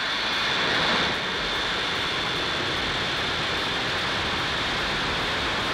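Falcon 9 rocket's nine Merlin first-stage engines at liftoff: a steady noise of rocket exhaust, a little louder about a second in, then holding level.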